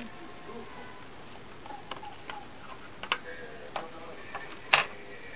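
A few scattered sharp clicks and taps from a cat's paws stepping about a desktop and on a computer mouse, the loudest about three-quarters of the way through.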